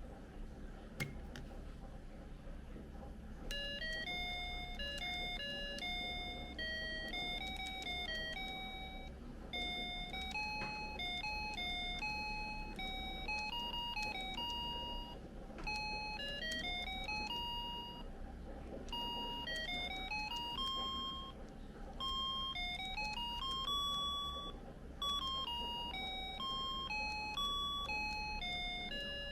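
Casio MG-880 calculator's built-in beeper playing a simple electronic melody, one plain beeped note after another with quick upward runs. It begins about three and a half seconds in, after a couple of clicks.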